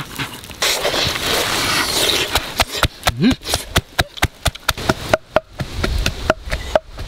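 Wooden pestle pounding red chillies in a wooden mortar: rapid, even knocks, each with a short ringing note, starting about two seconds in after a stretch of steady hiss.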